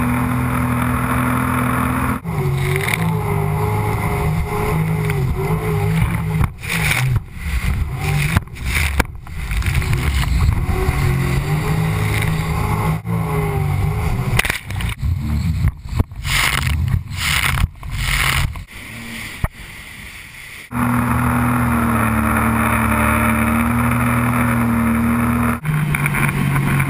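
Jet ski engine running at speed, its pitch wavering with the throttle and broken through the middle by many brief cut-outs and water splashing over the hull. Later it settles into a steady drone, then drops to a lower note near the end as the throttle eases.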